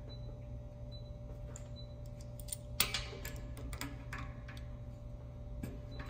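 Sharp metal clicks and clinks of a wrench against a new Furnas-style pressure switch as it is fitted and tightened onto its port on an air compressor tank, starting about halfway. A steady low hum and a faint regular tick lie underneath.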